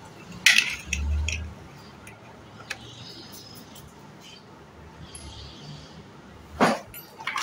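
Large plastic building blocks clacking and knocking together as they are handled and pressed into place: a few separate sharp clacks, with a louder cluster near the end.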